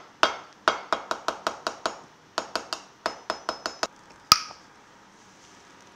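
Metal knife tapping the metal lid of a glass barbecue-sauce jar to break the vacuum seal: about sixteen quick, ringing taps in two runs. One louder pop follows as the lid is twisted and comes loose.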